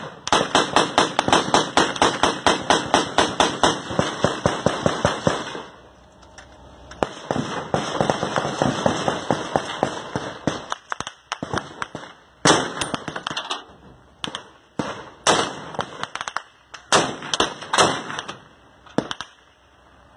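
Automatic gunfire in a firefight: a long unbroken string of rapid shots for about the first five seconds, a brief lull, then more strings of rapid fire and separate short bursts, some louder than others.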